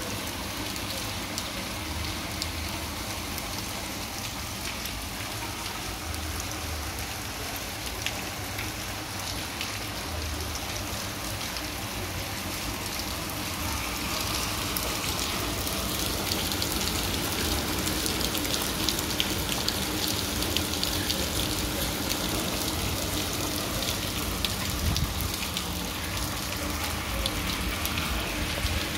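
Rain falling on a wet cobblestone street: a steady hiss full of small drop impacts, growing louder about halfway through.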